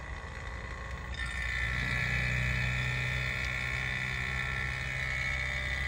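Refrigeration vacuum pump running steadily. About a second in its sound changes, growing louder with a stronger hum and an added high whine, as the Schrader core tool is opened and the pump starts pulling vacuum on the mini split's line set.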